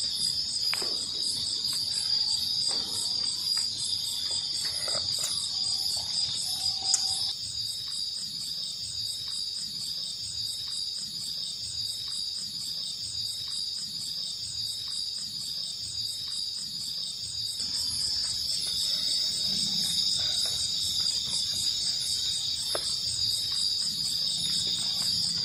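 Night chorus of crickets and other insects: a steady high-pitched trill with a regular pulsing chirp above it, and a few faint knocks in the first seven seconds.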